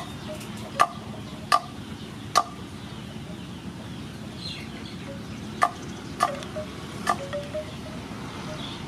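Kitchen knife chopping blocks of palm sugar on a wooden cutting board: sharp knocks at uneven intervals, three in the first couple of seconds and a few more in the second half.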